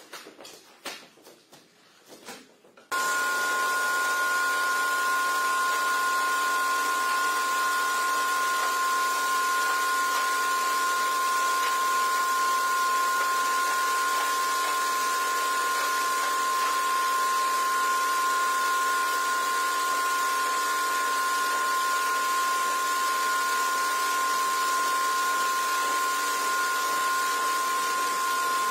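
A few faint knocks, then about three seconds in a pressure washer starts up and runs steadily, a loud spray hiss with a steady whine, as its water jet blasts a carpet on a tiled floor.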